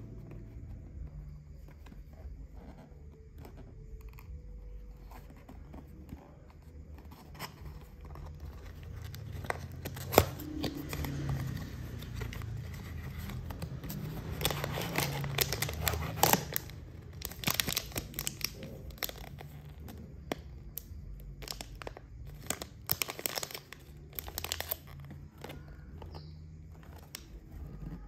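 Packaging being handled and opened by hand: plastic crinkling and tearing, with scattered sharp clicks and taps. It is busiest about halfway through, with a sharp click just before.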